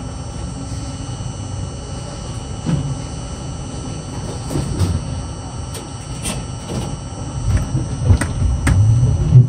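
R42 subway car running along the track with a steady low rumble and a string of sharp clacks from the wheels over rail joints, growing louder near the end.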